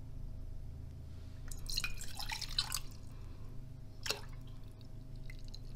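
Water and milk poured from small tea glasses into a stainless steel cezve: a splashing pour lasting about a second, then one sharp tap about four seconds in.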